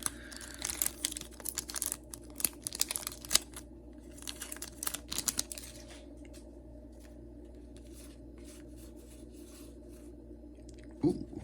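Foil booster pack wrapper being torn open and crinkled, a quick run of rips and crackles over the first six seconds or so, then only a steady low hum.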